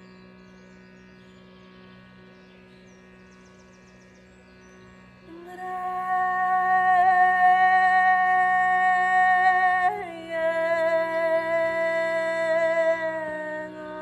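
Shrutibox drone sounding steadily under a woman's wordless singing. About five seconds in she starts a long held note, shifts to a slightly lower held note around ten seconds, and fades out near the end.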